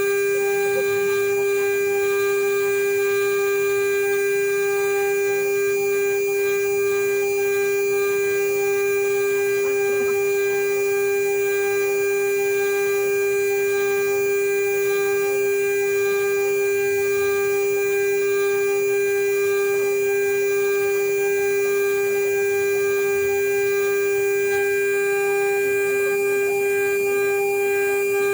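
CNC router spindle running at a steady, unbroken high whine, held at one constant pitch.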